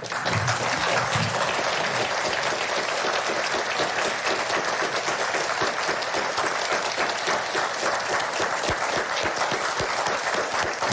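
Large studio audience applauding steadily: many people clapping at once in a dense, sustained ovation.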